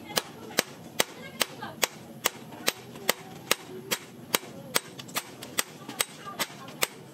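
Hand hammer striking a red-hot steel knife blade on a makeshift steel anvil, forging it out in a steady rhythm of about two to three sharp metallic blows a second.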